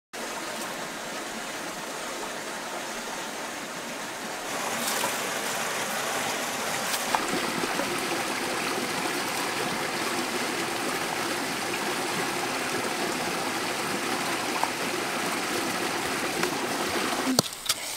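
Steady rush of a stream flowing over rocks, a little louder from about four and a half seconds in; it breaks off just before the end.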